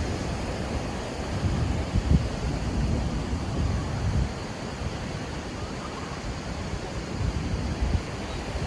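Sea waves washing onto a sandy beach, a steady rush, with wind buffeting the microphone in low rumbling gusts that are strongest a couple of seconds in.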